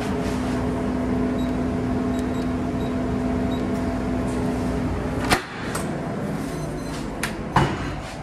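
A steady electrical or ventilation hum that stops about five seconds in. Then a sharp click as a keypad-locked door's latch releases, and two more latch clicks near the end as the shower-room door swings shut.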